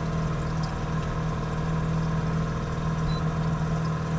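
Boat's outboard motor running steadily, a constant hum that holds the same pitch throughout.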